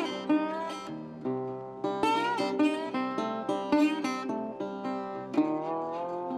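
Background instrumental music on plucked strings, guitar-like, picking a run of notes, with a couple of notes sliding in pitch.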